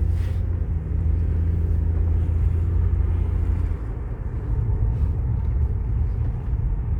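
2010 Toyota Sienna's V6 engine running with a stored cylinder 5 misfire (P0305), a steady low drone that weakens about four seconds in.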